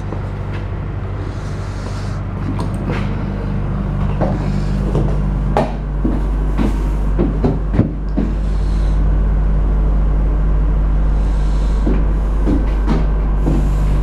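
Sanyo refrigerated-container cooling unit running with a steady hum, which gets louder about eight seconds in. Several short knocks and clunks from the metal-latched container door being handled sound over it.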